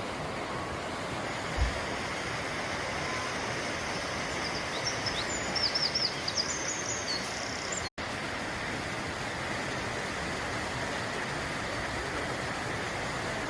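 Steady rushing noise of a waterfall, with a small bird chirping a quick run of high notes in the middle and a single low bump about a second and a half in.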